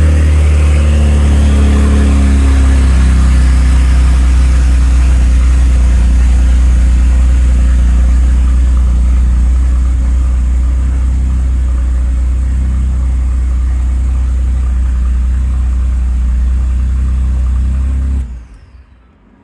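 Turbocharged truck engine idling through freshly fitted downpipes with no intermediate pipe or resonator yet, so the exhaust is open and loud. It runs steadily after a just-completed start and is switched off about eighteen seconds in.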